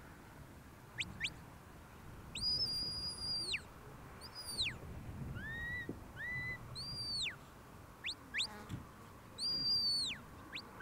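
A sheepdog handler's whistle commands to a working border collie: a run of shrill whistles, some short sharp rising chirps, some long held high notes that drop away at the end, with a couple of lower rising notes in the middle.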